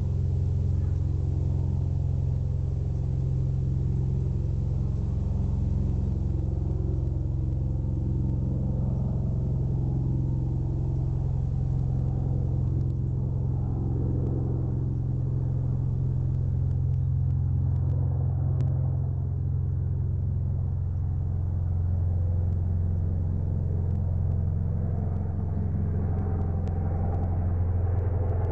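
Helicopter lingering nearby, a steady low rumble of rotor and engine.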